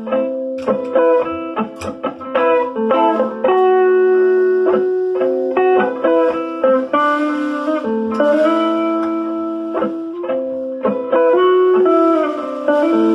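Live band playing: an electric guitar picks melodic lines of sustained notes over a drum kit, with sharp drum hits and cymbal crashes throughout.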